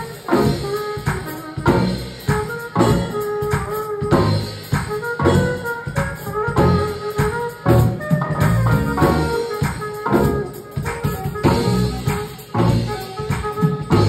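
Live band playing an R&B groove: saxophone over electric keyboard, electric bass and a drum kit keeping a steady beat.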